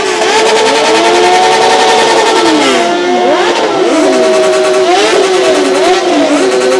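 Motorcycle engines revving hard and repeatedly, with several engine pitches rising and falling and crossing over one another, among them a Yamaha MT-09's three-cylinder engine through an F2R aftermarket exhaust.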